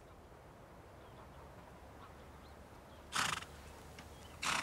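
Icelandic horses in a field: two short, rough bursts of sound, about three seconds in and again near the end, over a faint low rumble.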